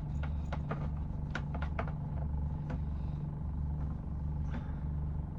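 Light clicks and taps of small cable connectors and hand tools being handled, a dozen or so in the first three seconds and a few more later, over a steady low hum that pulses about once a second.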